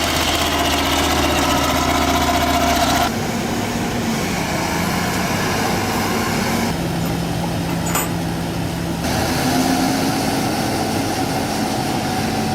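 Heavy vehicle engine running steadily, its note changing abruptly a few times: about 3, 7 and 9 seconds in.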